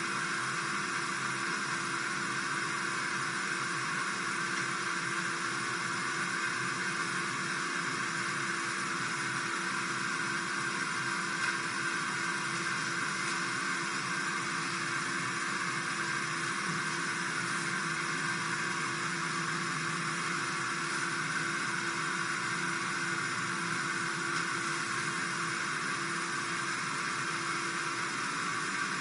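Steady whirring hiss with a faint low hum underneath, unchanging throughout, with no distinct events.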